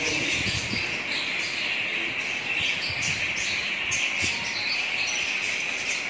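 A large flock of budgerigars chattering, with many short high chirps overlapping into a continuous din.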